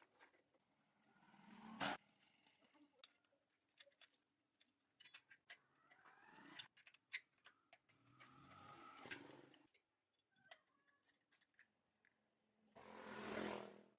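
Faint scattered clicks and ticks, with four short rushing, scraping noises between them; the last, near the end, is the loudest.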